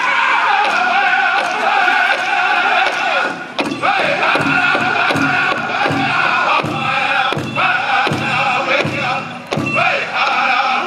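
Powwow drum group singing a song in chorus, voices high and sustained, over a steady beat on a large powwow drum; the drumbeat stands out more plainly from about a third of the way in.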